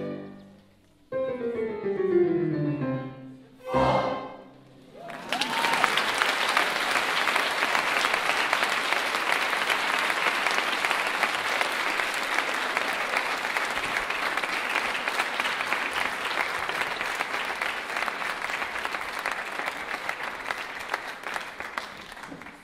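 A choir and orchestra end their piece: a held chord dies away, a sliding downward glide in pitch follows, and a final sharp hit comes about four seconds in. Then an audience applauds steadily, the clapping fading near the end.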